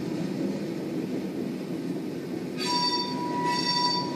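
Tank cars of a Norfolk Southern oil train rolling past with a steady low rumble. A bit over halfway in, the wheels start a high-pitched squeal that swells and fades about once a second.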